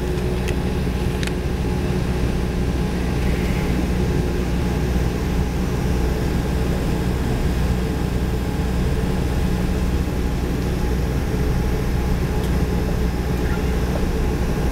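Steady engine drone and cabin hum inside a jet airliner taxiing at low power, heard from a window seat.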